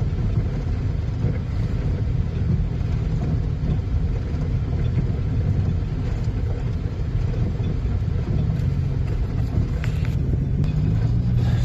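Steady low rumble of a car's engine and tyres heard inside the cabin while driving.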